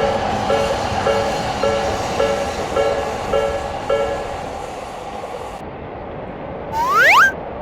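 Japanese railroad crossing alarm ringing its repeated two-tone ding about twice a second over the rumble of a passing train. The alarm stops about four seconds in, and a loud rising whistle-like sweep sounds near the end.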